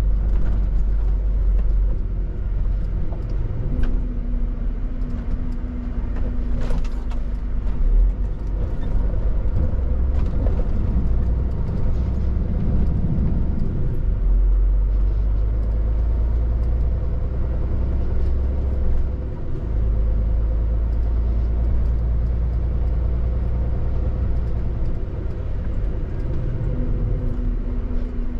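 Scania R450 articulated lorry driving: a steady low engine drone and road rumble, with the engine's pitch rising and falling once around the middle.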